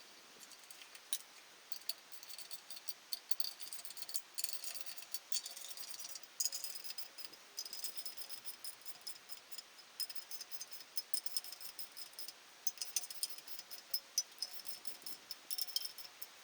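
Light metallic clinking and rattling of small tools or engine parts being handled, in irregular clicks with no steady rhythm.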